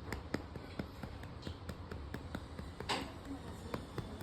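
A hand slapping a cat's rump over and over, sharp pats at about three a second, one a little louder about three seconds in.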